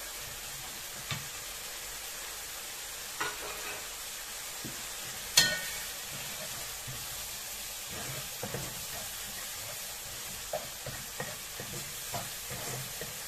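Ground spice paste frying in oil in a wok with a steady sizzle while a metal spatula stirs and scrapes it, clicking against the pan now and then, with one sharp clank about five seconds in. The paste is being sautéed until fragrant.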